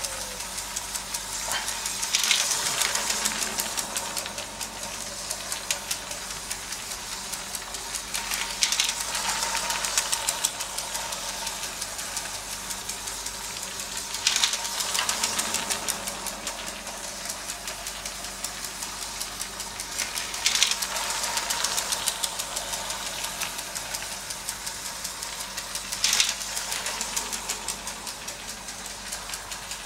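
Motorized LEGO train, a steam-style locomotive pulling two coaches, running on plastic LEGO track: a steady rattling clatter of wheels and motor with a faint whine. It gets louder about every six seconds as the train comes round the loop.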